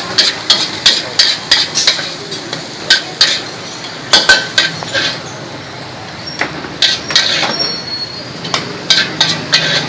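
Metal spatula clanking and scraping against a steel wok as fried rice with greens is stir-fried and scooped out onto a plate. The strikes come several a second at first, with a short lull around the middle and another run of clanks near the end.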